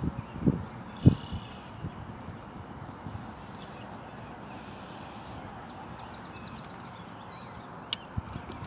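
Small songbirds chirping, many short calls over a steady outdoor hiss, with a denser flurry near the end. A couple of low thumps come about half a second and a second in, the second one loudest.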